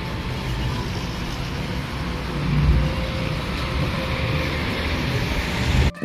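Steady road traffic noise, a dense rumble and hiss, swelling briefly about two and a half seconds in. It cuts off abruptly just before the end.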